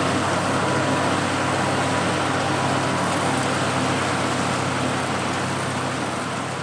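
Oliver 430 combine running steadily while harvesting wheat: its 265 cubic inch Chrysler flathead six-cylinder gasoline engine together with the threshing machinery, a steady drone that begins to fade out near the end.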